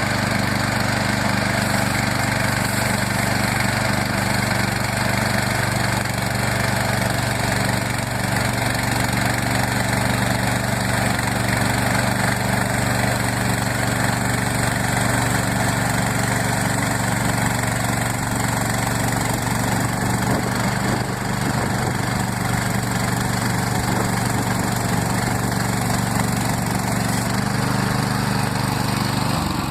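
Woodland Mills HM130 Max bandsaw sawmill's gas engine running steadily under load as the band blade cuts through a black walnut log.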